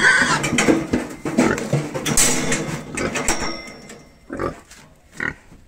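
Pigs squealing loudly and harshly while being caught and handled, with knocks and clatter mixed in; the squealing fades after about three seconds, leaving two short squeals near the end.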